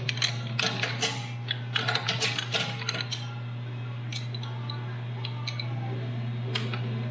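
Quick metallic clicks and taps of hand tools and engine parts being handled, bunched in the first three seconds with a few more later, over a steady low hum.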